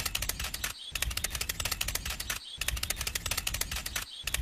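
Fast, even clicking, well over ten clicks a second. It breaks off for a moment about every second and a half and starts again the same way, like a looped sound effect.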